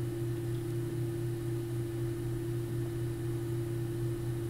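Steady electrical hum: a low drone with a fainter, higher steady tone above it, unchanging throughout.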